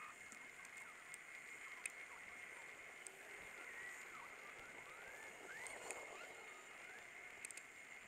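Near silence from the nest-box microphone: a faint steady high whine and hiss, with a few faint short chirps and scattered soft clicks.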